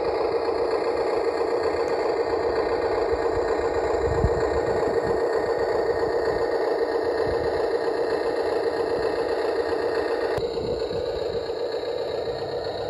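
HUINA 1583 RC loader's built-in sound kit playing a simulated engine running sound through its small speaker, steady and even, dropping a little in level about ten seconds in.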